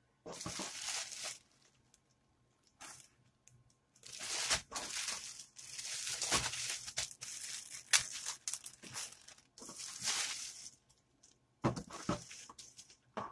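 Clear plastic poly bag crinkling in repeated bursts with short pauses between them as it is opened and a folded cotton T-shirt is pulled out of it.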